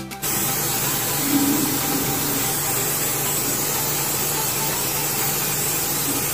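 Aerosol spray-paint can spraying in one long, steady hiss, starting a moment in after the music stops.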